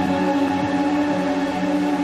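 Slow ambient music of long held tones, steady and without a beat.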